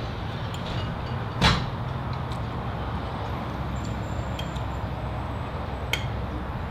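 Steady low rumble of traffic, with a single brief thump about a second and a half in. Light clinks of cutlery on plates come near the end.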